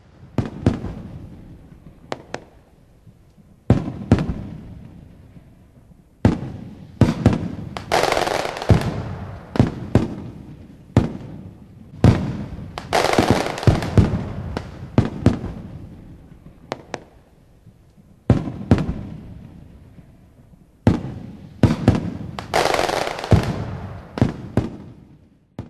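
Aerial fireworks shells bursting: a series of sharp booms, each fading away in a long echo, with thick spells of crackling about eight, thirteen and twenty-two seconds in.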